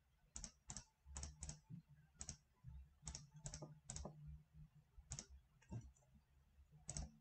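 Faint computer mouse clicks, about a dozen at an uneven pace, each a quick press-and-release pair, as numbers are clicked into an on-screen calculator.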